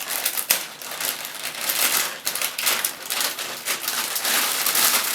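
Graphics-card packaging crinkling and rustling as it is handled during unboxing: a dense run of small crackles and rustles, with a sharp click about half a second in.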